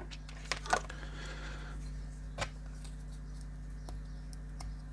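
Three light clicks of a wire being worked out of a Wago lever-type wire connector, two close together near the start and one about two and a half seconds in, over a steady low electrical hum.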